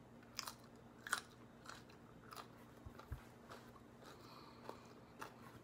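Faint crunching as a raw, thick-walled Onza Amarillo chili pepper (Capsicum annuum) is bitten into and chewed, with soft crunches about once a second.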